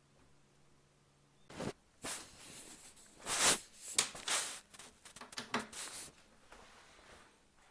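A USB cable being handled and its plug pushed into a USB-A port on an EcoFlow River 2 Pro power station: a run of rustles, scrapes and clicks, loudest in the middle.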